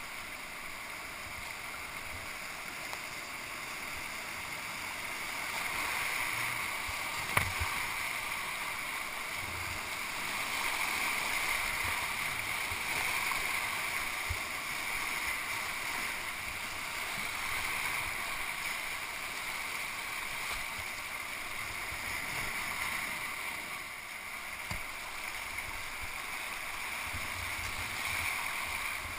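Whitewater rapids rushing steadily around a kayak, heard close up from the boat, with one sharp knock about seven seconds in.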